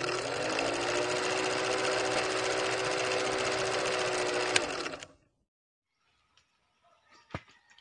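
Film projector sound effect: a rapid mechanical clatter over a steady motor hum, running for about five seconds and then cutting off. After a near-silent pause, faint outdoor sounds and a single sharp click come near the end.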